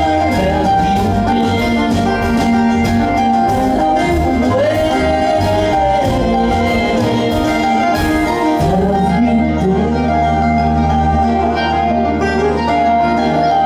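Live acoustic string band playing a song: fiddle, banjo, acoustic guitar and upright bass together, with a sliding melody line over a steady bass.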